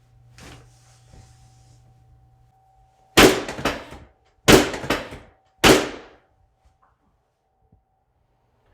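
Three loud bursts of sharp cracks during a chiropractic adjustment, about a second apart, each a quick cluster of two or three snaps.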